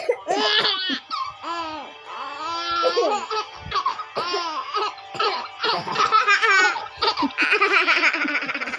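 Baby laughing hard in a long run of high-pitched laughs, set off by an older sibling's coughing.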